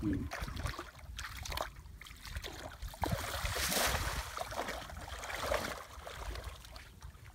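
Water splashing and trickling, with scattered small knocks and a brief louder rush of water about halfway through.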